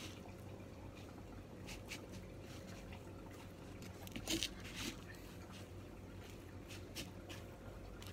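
Faint wet squishing and crumbly rustling of hands dipping a pork chop in beaten egg and pressing it into breadcrumbs, with scattered soft clicks and a brief louder patch about four seconds in. A steady low hum runs underneath.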